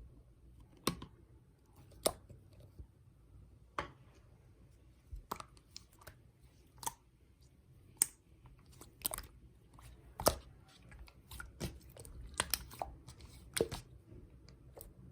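Hands squeezing and poking a slime, giving sharp, irregular clicking pops about once a second.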